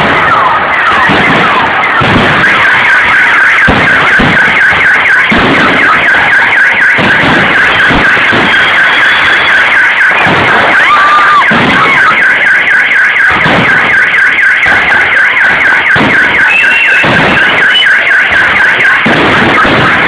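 Fireworks display at full intensity: dense, continuous crackling with repeated booms from bursting shells and short whistles.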